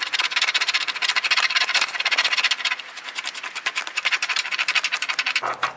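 Rapid back-and-forth scratching at a scratch-off panel on a printed treasure map card, several strokes a second, stopping near the end.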